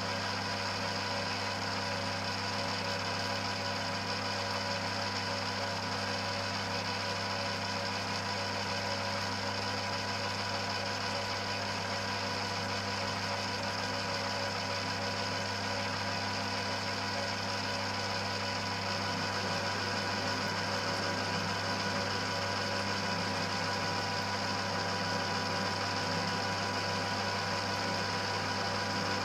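1940s Colchester lathe running steadily with its spindle turning in tapered bronze bushings fed by a drip oiler: an even machine hum with several constant tones.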